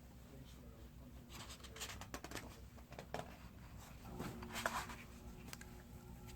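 Faint rustling and scraping of paper as a book's page is handled and turned, in a few soft strokes.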